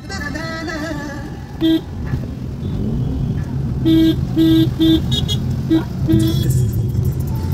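Road traffic: a steady low rumble of engines with about six short car horn honks, three of them in quick succession around the middle.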